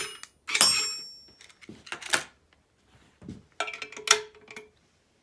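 Metal hardware on a bucking dummy clicking and clanking. There are two sharp clanks with a bright metallic ring in the first second, then a few more clicks and knocks about two seconds in and again near four seconds.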